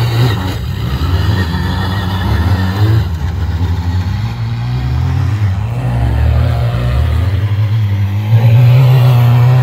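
Quad bike (ATV) engines revving and running as the quads ride a dirt track, the pitch rising and falling with the throttle. A louder, steadier engine note comes in near the end.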